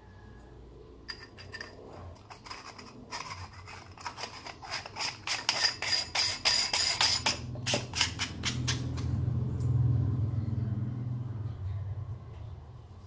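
Quick scratchy clicks of a metal rifle scope being handled with its screw-on sunshade at the objective end. The clicks grow denser and louder, then stop at about eight seconds, and a low hum swells and fades away.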